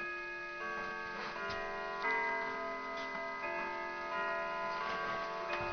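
Grandfather clock's chime movement playing a quarter-hour chime melody: a series of struck notes, one every half second to a second, each ringing on and overlapping the next, with clock ticking beneath.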